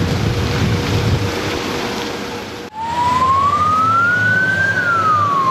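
A rushing noise with a faint steady hum, then, after a cut about two and a half seconds in, a fire engine's siren in one slow wail: it rises in pitch for about two seconds and then falls, over a low engine rumble.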